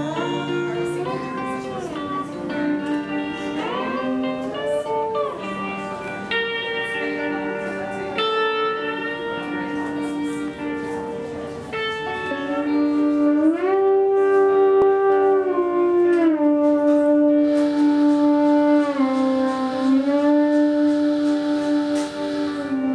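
Lap steel guitar played with a slide bar, an instrumental solo whose notes glide up and down between held pitches. It gets louder about halfway through.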